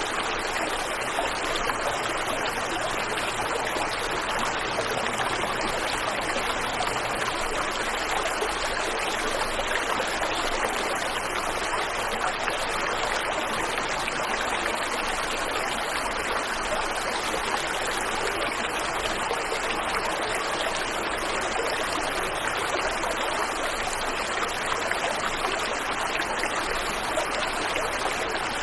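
Waterfall and river water rushing steadily, an even, unbroken roar of flowing water.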